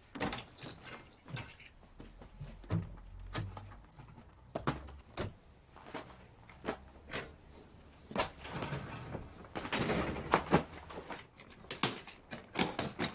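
Packing by hand: a bag and clothes being handled and put into a suitcase, with scattered knocks and clicks and a stretch of rustling about two-thirds of the way through.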